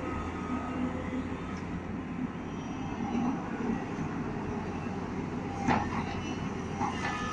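Tata Hitachi EX210LC excavator's diesel engine running steadily under load in power mode as it swings a loaded bucket over to a dump truck. Two sharp knocks, a second apart near the end, as the bucket dumps its earth into the truck's steel body.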